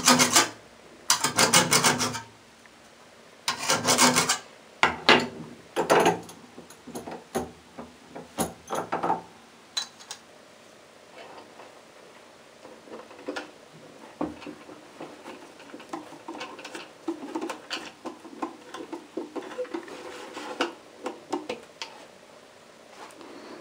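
Hand file rasping in several back-and-forth strokes over the first nine seconds, deburring the sharp cut end of a shortened screw clamped in a vise. After that, faint clicks and scrapes as a small screwdriver drives a screw into the wooden box to fix a brass label holder.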